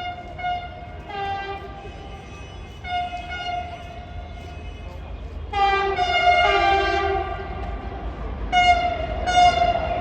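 Train horn sounding in a series of blasts, some short toots and some held for about a second, several tones sounding together, over a steady low rumble.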